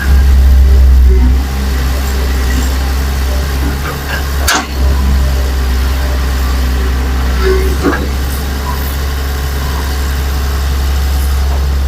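Heavy diesel engine of earthmoving machinery running steadily with a deep, even rumble, loudest for the first second or so. A sharp knock sounds about four and a half seconds in, and a fainter one near eight seconds.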